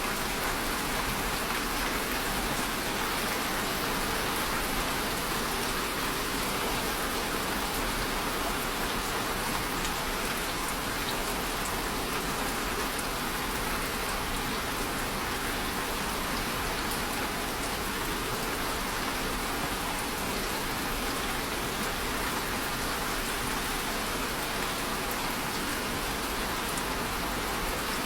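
Steady rainfall pattering on a surface, an even hiss of many drops with no let-up.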